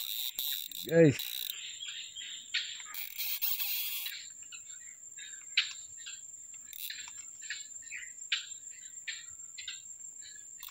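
Outdoor ambience with a steady high-pitched insect drone and many short, repeated chirps of birds or insects. In the first four seconds there are two bursts of rustling, splashy noise, and about a second in a brief, loud, low voice-like sound.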